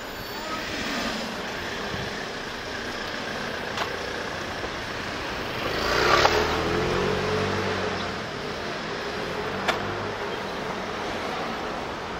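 Street traffic, with a motor scooter passing close by about halfway through: its engine rises to the loudest point for a moment, then fades over the next couple of seconds.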